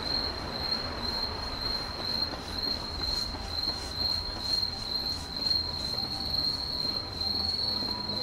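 Insects trilling steadily, one continuous high-pitched tone with a slight pulsing, over a low background rumble.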